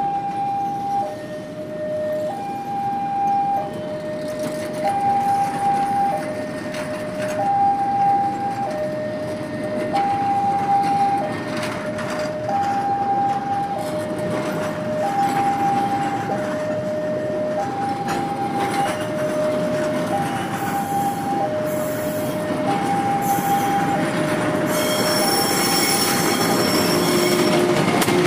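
Level-crossing warning alarm sounding a two-tone signal, high and low alternating about once a second, over the rolling rumble of passenger coaches passing slowly over the crossing. Near the end, high wheel squeal and the drone of the approaching diesel locomotive rise over it.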